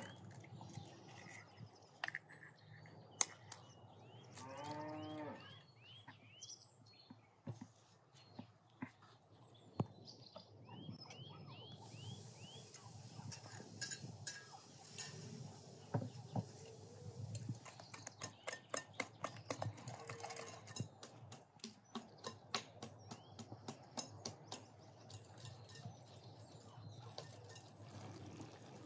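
Wire whisk clicking against a glass bowl, the clicks coming fast and regular in the second half as eggs are beaten, with a soft pouring hiss near the middle. Small birds chirp now and then, and a cow moos once about five seconds in.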